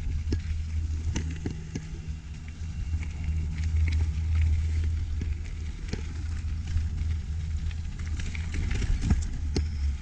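Mountain bike rolling down a loose gravel trail: a steady low rumble of tyres and wind on the microphone, with scattered clicks and rattles from gravel and the bike.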